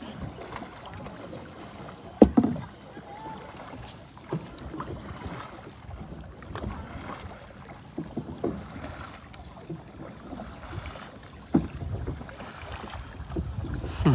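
A single paddle dipping and splashing as a long wooden boat is paddled through the water, in uneven strokes, with a sharp knock about two seconds in.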